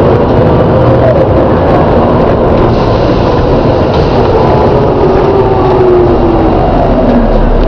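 Volvo B7TL double-decker bus running, with a loud groaning tone over the engine and road rumble that wavers and slides slowly down in pitch for a few seconds before rising again near the end.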